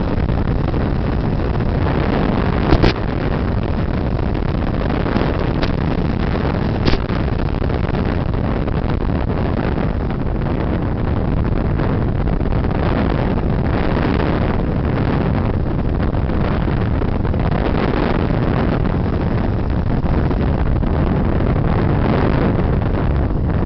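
Radio-controlled FPV plane in flight: steady motor and propeller noise mixed with wind rushing over the onboard microphone. Two short sharp clicks, about 3 and 7 seconds in.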